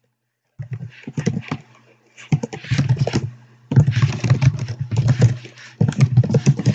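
Computer keyboard typing in quick bursts of keystrokes with short pauses between, starting about half a second in, over a low hum.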